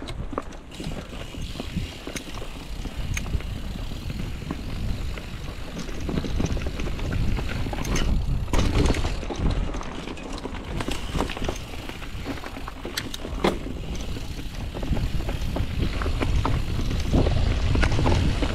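Mountain bike riding fast down a dirt trail: a steady low rumble of tyres and air, broken by frequent sharp clicks and rattles from the bike over the rough ground.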